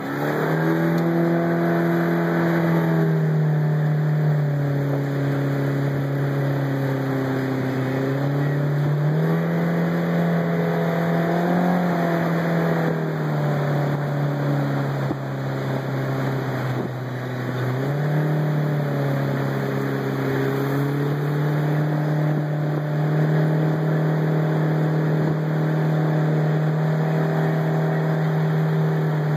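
Outboard jet motor running under way, steady and loud, its engine pitch dropping about four seconds in, rising again near nine seconds, dropping again near thirteen and rising again near eighteen seconds as the throttle is eased and opened.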